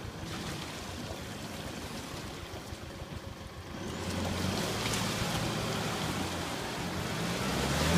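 Isuzu D-Max ute's engine running under load as it tries to drive out of a mud bog: low and faint at first, then revving up about four seconds in and holding a steady, louder note that builds toward the end.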